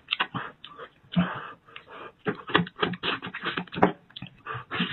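Close-miked eating of sheep's-head meat: wet smacking chews and clicks in quick, irregular bursts.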